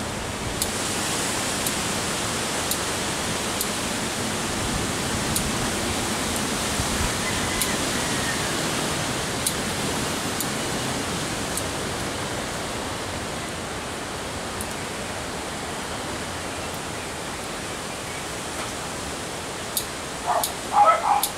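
Small sharp snips of bonsai scissors cutting leaves and twigs from a Bignay bonsai, about one a second, over a steady rushing background noise. A dog barks a few times near the end.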